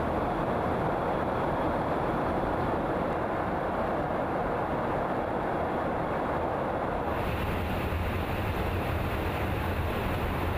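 Steady engine and airflow noise inside a KC-135 Stratotanker in flight. About seven seconds in the sound changes, with more hiss and a deeper hum.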